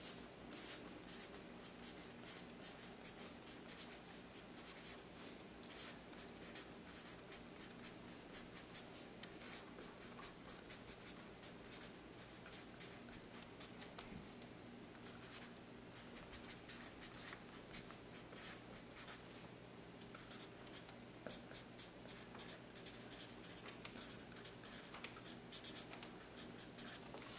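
Felt-tip permanent marker writing block capital letters on graph paper: a faint, continuous run of short strokes and scrapes as each letter is drawn, over a faint steady low hum.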